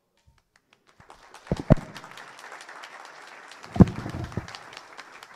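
Audience applauding, starting about a second in, with a few loud thumps, the loudest near the middle.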